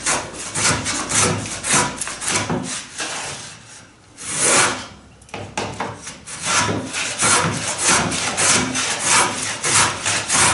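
Stanley No. 78 rabbet plane cutting a rebate in a wooden plank: quick, repeated scraping strokes of the iron through the wood, with a brief pause about four seconds in. The plane is bouncing and not cutting a clean edge.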